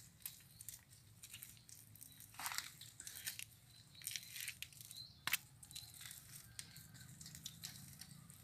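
Faint rustling and crunching of dried straw and mud caked on a Quick G1000 hand tractor's iron cage wheels as they are gripped and shifted on the axle, with scattered small clicks and one sharp knock about five seconds in.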